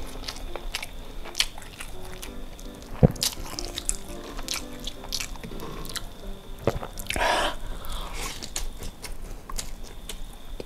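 Close-up eating sounds from a hand-mixed pile of rice, spicy sambal and sausage: fingers squishing through the sticky rice, then wet chewing and lip smacks, with many sharp clicks, a loud one about three seconds in. A short breathy hiss comes about seven seconds in, and quiet background music with a light melody plays underneath.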